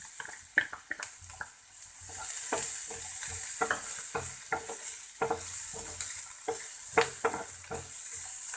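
Chopped onion and capsicum sizzling as they fry in oil in a pan, with a spatula stirring and scraping against the pan in quick irregular strokes. The sizzle grows louder about two seconds in.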